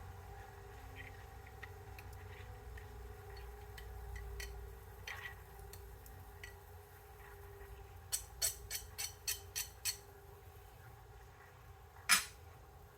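Light clicks and taps from handling the twisted wire and small hand tools on a bench over a low steady hum: a quick run of about eight clicks roughly two-thirds of the way in, then one louder click near the end.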